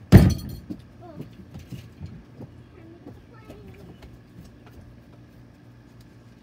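A loud knock right against the microphone at the very start, dying away within half a second, then faint, distant voices over a low steady hum.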